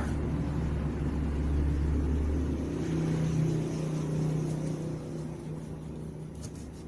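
Low engine rumble of a motor vehicle, swelling through the middle and fading away near the end, as a vehicle passing by.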